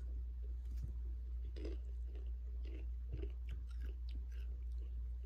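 Takis rolled tortilla chips being chewed, a run of short, irregular crunches, over a steady low hum.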